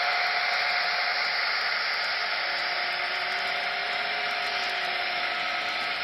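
N scale model hopper train running on the track: a steady rushing noise of the cars rolling, with a few steady tones under it from the train's running gear and BLI Paragon EMD F3 locomotives.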